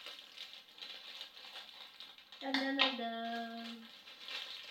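Crinkling and snipping of a small foil packet being cut open with scissors, then a girl's voice holding a sung note for about a second and a half, stepping slightly down in pitch partway through.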